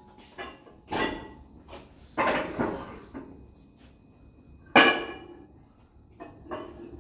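Weight plates clanking and ringing as they are slid onto the loading pegs of a plate-loaded leg press. It is a series of metal knocks, the loudest about five seconds in.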